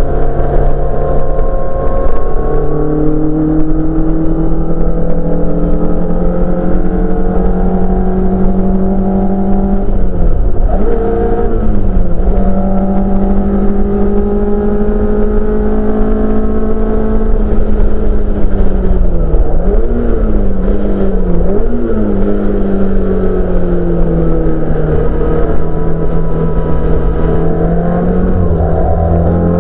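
Honda F20C four-cylinder engine in a Mk2 Ford Escort race car, heard loud from inside the cabin while driving hard on track. The engine note climbs slowly, then drops with quick blips of revs about ten seconds in and again around twenty seconds in as gears change, before pulling again.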